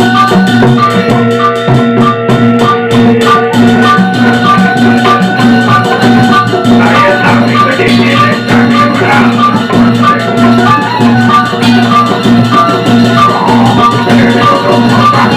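Sasak gamelan ensemble playing a gending for wayang Sasak, with drums and a steady repeated high note about three times a second over sustained low tones.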